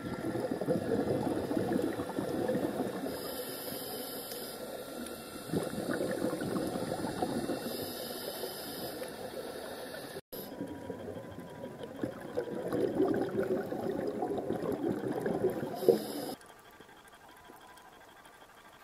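Scuba diver breathing through a regulator, heard underwater: bubbling bursts of exhaled bubbles a few seconds long, with a short high hiss of inhalation in between. The sound drops away suddenly near the end.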